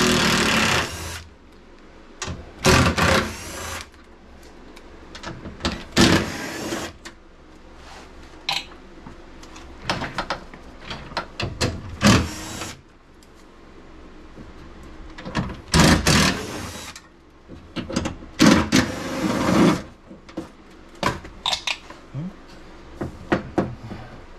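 Cordless drill/driver run in about eight short bursts of a second or less, taking out the window regulator's fasteners inside a car door panel, with light clinks of handling between the bursts.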